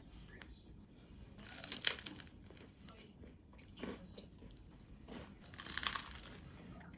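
Onion bagel crunching. There are two longer crackling crunches, one a little after the start and one near the end, with a couple of short crackles between them.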